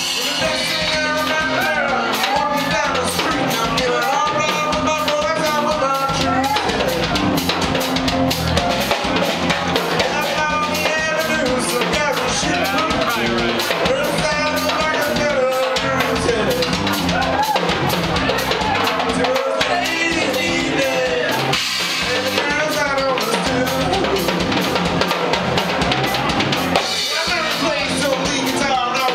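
Live rock band playing a loud song, with drum kit, bass and electric guitars and a melody line bending in pitch over a steady drum beat.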